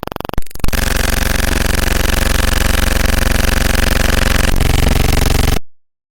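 A loud, steady, engine-like rumble sound effect lasting about five seconds, then cut off, with a rapid pulsing sound ending just before it.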